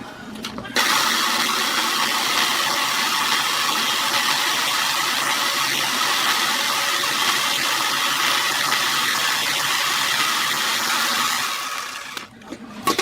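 A handheld power tool's electric motor switches on about a second in, runs steadily and loudly for about ten seconds, then winds down, followed by a short knock near the end.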